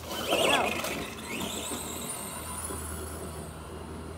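Hobby-grade RC monster truck driving away, its motor giving a thin high whine that rises slowly in pitch as it speeds up, after a short louder burst about half a second in.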